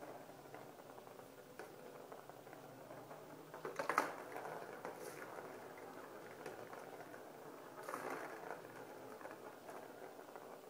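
A small ball rolling and rattling around the plastic track of a circular cat toy as a cat bats at it, with louder bursts about four and eight seconds in.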